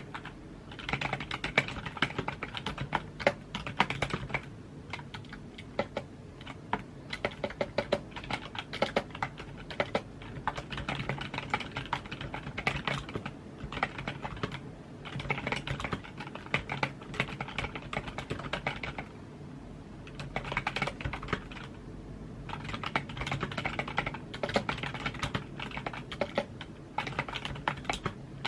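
Typing on a computer keyboard: fast runs of key clicks, broken by brief pauses every few seconds.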